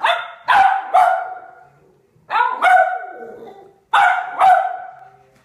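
Cavalier King Charles Spaniel barking: seven loud, sharp barks in three bunches (three, then two, then two), each one trailing off briefly.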